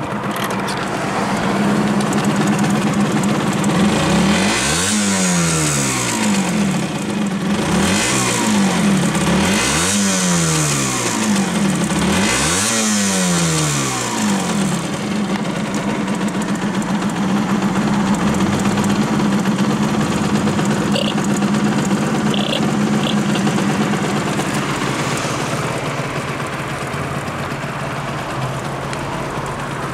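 Honda NS-1's 50cc two-stroke single on its stock exhaust, idling and blipped four times in quick succession, each rev rising and dropping straight back. For the second half it settles back to a steady idle.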